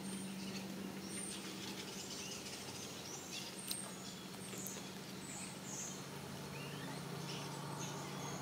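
A small bird chirping: short, high chirps about once a second, over a steady low hum.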